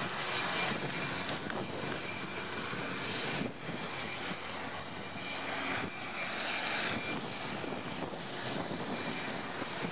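Steady mechanical running noise, like an engine or machine, with no clear change throughout.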